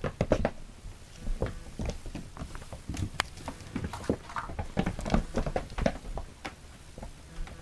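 Cats scampering and tussling on a floor: a quick, irregular run of paw taps, claw scrapes and knocks.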